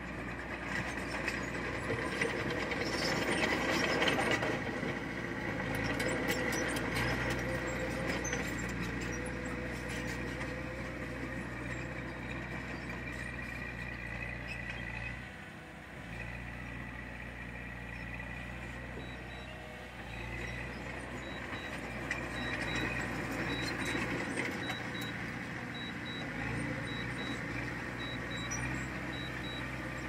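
Heavy earthmoving machinery's diesel engine running steadily under work, with rattling in the first several seconds. About two-thirds of the way in, a reversing alarm starts beeping, a little under two beeps a second.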